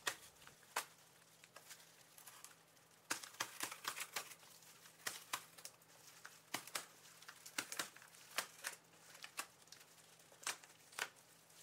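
Zip tear strip being pulled along a corrugated cardboard shipping box, tearing the cardboard open in irregular short crackles and rips that come thicker from about three seconds in.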